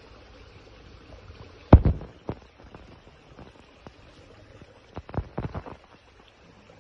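Handling knocks and clatter while a smallmouth bass is gripped in a cloth and unhooked on a gravel creek bank: one sharp knock about two seconds in, then a quick cluster of knocks around five seconds. Under them runs a steady low rush of creek water.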